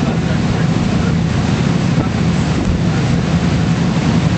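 Wind buffeting the microphone on the deck of a cruise boat, over the boat's steady low engine drone and the rush of water.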